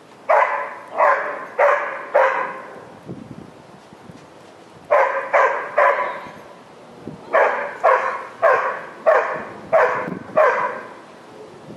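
A dog barking in runs of three to seven barks, about two barks a second, with short pauses between the runs.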